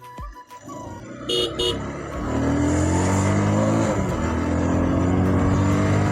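Two short horn toots about a second in, then a motorcycle engine pulling away and accelerating, its pitch climbing, dropping briefly at an upshift about four seconds in, then climbing again, with rushing wind over the helmet-mounted mic.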